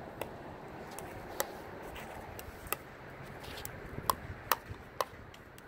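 Rally of a plastic pickleball being dinked back and forth: about six sharp pops as the ball comes off the paddles and the court. They come roughly a second apart at first, then three close together near the end.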